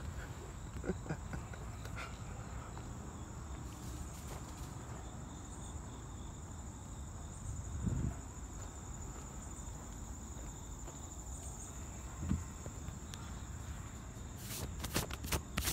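A steady, high-pitched chorus of insects trilling in the trees, with a couple of dull thumps and a quick run of sharp clicks near the end.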